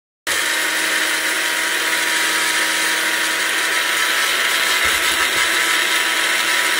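Farberware personal blender running, its motor whining steadily as the blade crushes hot Cheetos in the cup; the sound cuts in suddenly just after the start.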